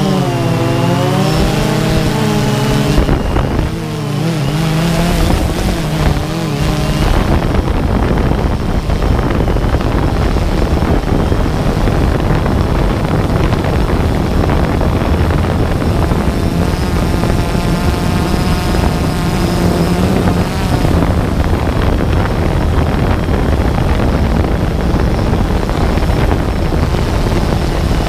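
DJI Phantom 2 quadcopter's motors and propellers whirring, heard through the onboard GoPro, with wind buffeting the microphone. The pitch wavers up and down as the motors change speed, in the first few seconds and again in the middle.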